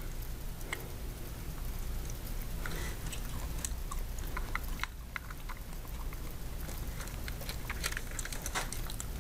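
Fingers handling thin telephone jumper wire at a punch-down block: small scattered clicks and rustles of wire against the block's metal clips, over a low steady hum.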